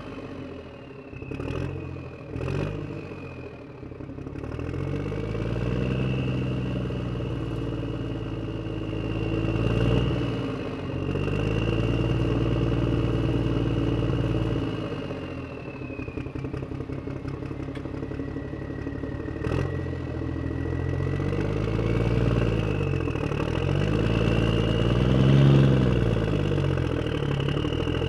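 Miniature excavator running as it digs soil: a motor sound that rises and falls in pitch over and over with a thin high whine above it, and a few sharp clicks near the start and about two-thirds of the way in.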